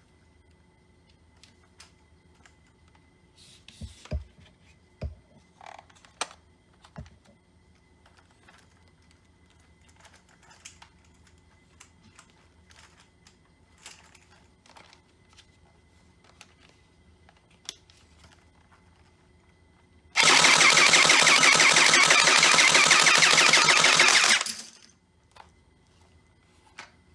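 Scattered handling clicks and a few low knocks, then an electric toy M416 gun firing on full auto in one loud continuous burst of about four seconds that cuts off.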